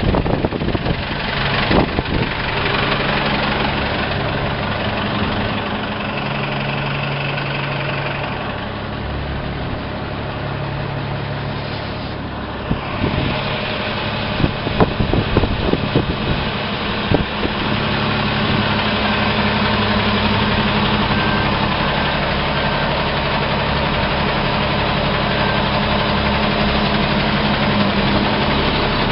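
Heavy diesel plow truck engine idling steadily, with a few sharp clicks and knocks scattered through it.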